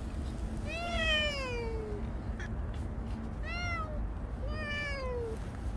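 A cat meowing three times, each call falling in pitch; the first, about a second in, is the longest.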